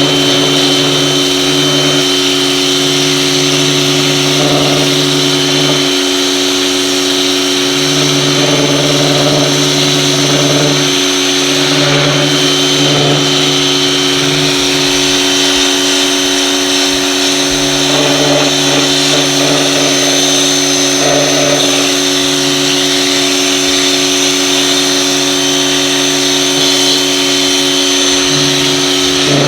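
Mechpro 2000 W electric pressure washer running steadily under load with a constant whine, spraying water through its rotary turbo nozzle.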